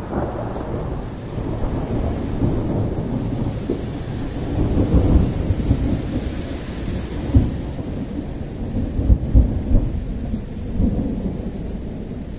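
Thunder from a thunderstorm: a long low rolling rumble that swells about five seconds in, with sharper booms near seven and nine seconds, over steady rain.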